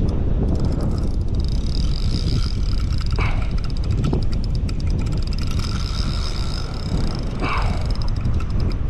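Small boat's outboard motor running steadily, with a faint whine over heavy wind rumble on the microphone. Two brief swishes come about three seconds and seven and a half seconds in.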